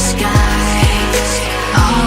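Background electronic pop music with a steady beat, deep kick drums about twice a second over sustained bass and synth tones.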